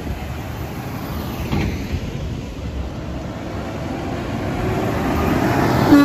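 Traffic passing on a busy multi-lane road: tyre and engine noise that swells toward the end as a vehicle draws close. A vehicle horn starts right at the end.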